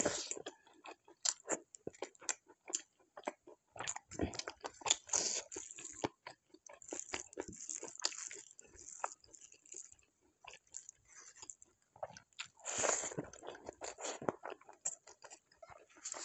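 Close-miked eating: biting and chewing, with many small crunches and wet mouth clicks at an irregular pace. A longer, louder stretch comes near the end.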